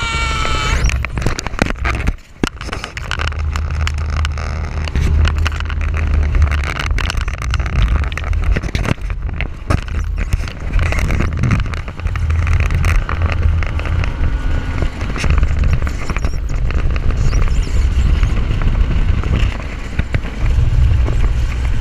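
Bass boat under way with its Mercury OptiMax 150 outboard running, nearly buried under heavy wind rumble and buffeting on the console-mounted microphone.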